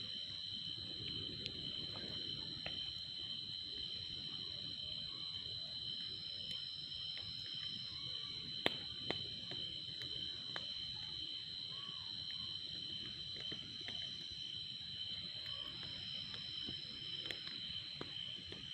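Steady insect chorus, like crickets, holding two high pitches without a break. A few scattered sharp clicks sound over it.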